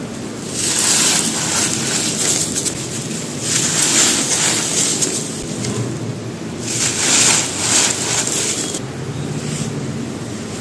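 Dry mud brick being crumbled, in three gritty, crackling bursts of about two seconds each, over a low steady hum.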